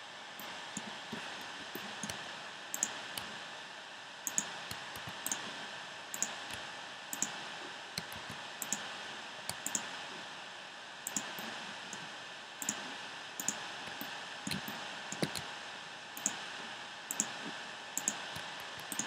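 Irregular clicking of a computer mouse and keyboard, about one or two clicks a second, over a steady hiss.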